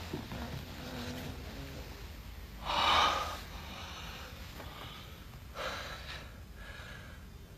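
A person's heavy breaths: a loud one about three seconds in and a softer one near six seconds, over a low steady hum.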